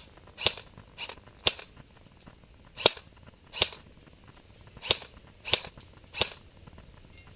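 Airsoft guns firing single shots: about eight sharp, irregularly spaced pops over six seconds, then none.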